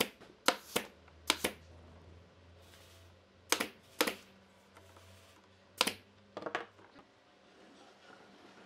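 Pneumatic nail gun firing brads into thin wooden strips: about eight sharp shots over the first six or seven seconds, several in quick pairs.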